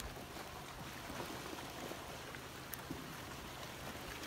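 Flash-flood debris flow of muddy water carrying a mat of logs and branches: a steady churning, rushing noise with a few faint clicks.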